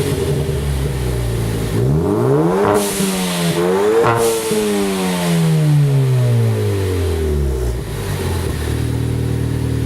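Ford Focus ST's 2.0 L turbocharged four-cylinder revved through its exhaust: idling, then two quick blips of the throttle about 3 and 4 seconds in, the revs falling slowly back to idle.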